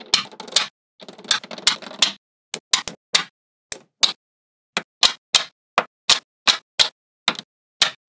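Small magnetic balls clicking as they snap together one by one. The first two seconds hold a quick clattering run of many clicks, then single sharp clicks follow about two or three a second.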